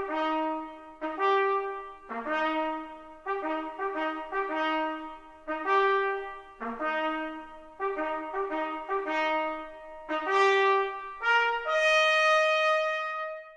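Brass fanfare music: a melody of short notes played in harmony, ending near the end on a long held chord that stops abruptly.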